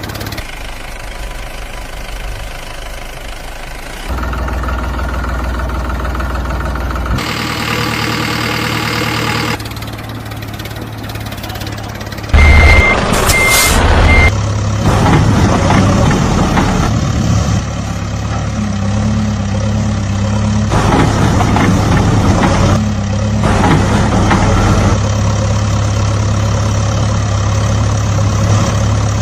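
Heavy vehicle engines of a backhoe loader and tractor, running and idling with a steady low hum, the sound changing abruptly several times. Three short high beeps a little before halfway.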